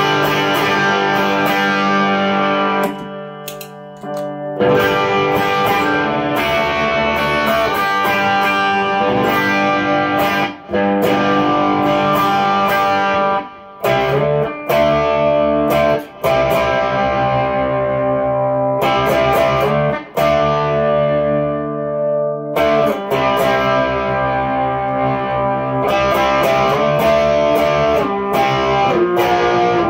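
Electric guitar, a single-coil American Stratocaster through a Fender Twin Reverb amp and effects pedals, playing sustained, overdriven chords and riffs. The playing stops briefly several times between phrases.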